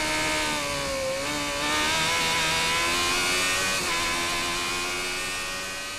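Formula SAE race car engine heard on board, running hard with its revs dropping and climbing again about a second in and changing pitch again a little before four seconds, as the car accelerates and slows through a cone course.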